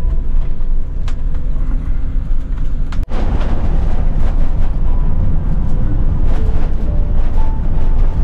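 Road and engine noise of a moving motorhome heard from inside: a steady low rumble that drops out for an instant about three seconds in and comes back a little louder.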